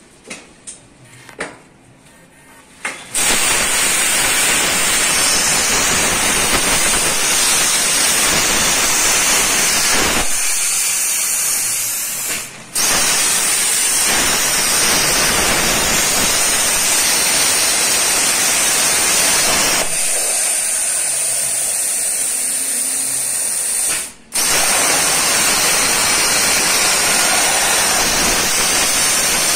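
A few clicks, then, about three seconds in, a CNC table's plasma cutting torch fires and cuts steel plate with a loud, steady hiss and a high whine. The arc stops for a moment twice, near the middle and about two-thirds through, and starts again each time.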